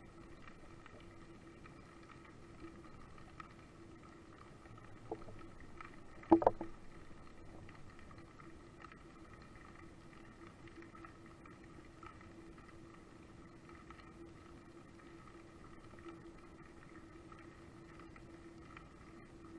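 Underwater ambience: a faint, steady hum heard through the water. A small knock comes about five seconds in, and a much louder, sharp knock about a second later.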